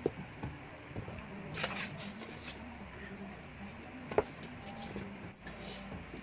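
Scattered small clicks and wet mouth smacks of someone eating chicken feet adobo, with one sharp click about four seconds in, over a faint steady hum.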